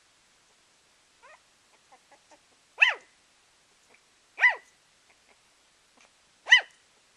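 Puppy giving three short, high-pitched barks a second or two apart, each rising and falling in pitch, after a few faint little squeaks about a second in.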